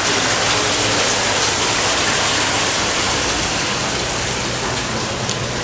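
Steady rush of running or splashing water, an even hiss with no break.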